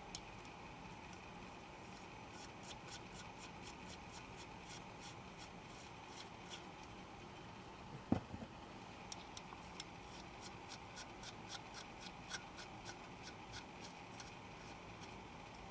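Wrench tightening the nuts of a camshaft bearing cap on a cylinder head: faint, quick runs of small metallic clicks, with one louder knock about eight seconds in.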